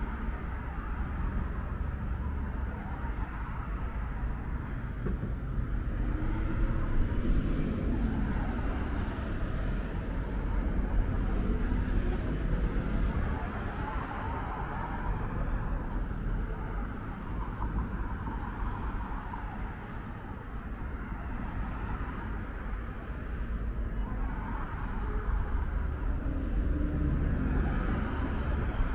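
Steady road traffic on a busy multi-lane city street: a continuous rumble of cars passing close by, swelling as vehicles go past, with a city bus passing near the end.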